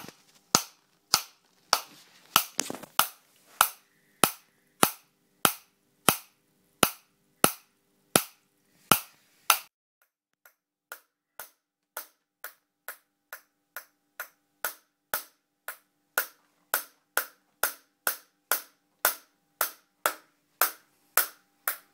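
High-voltage capacitor discharges sparking through an electrode in a cup of water (Yutkin electrohydraulic effect): sharp snapping cracks about twice a second. A faint steady hum runs underneath. The cracks stop for about a second near the middle, then resume fainter and grow steadily louder.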